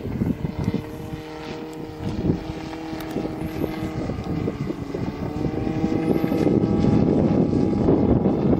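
Giant-scale radio-controlled Bellanca Super Decathlon model aircraft's engine and propeller droning steadily in flight, growing louder from about five seconds in.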